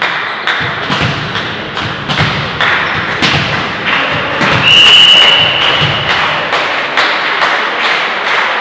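Rhythmic thumping in a sports hall, about two sharp knocks a second, with a referee's whistle blown once for about a second midway.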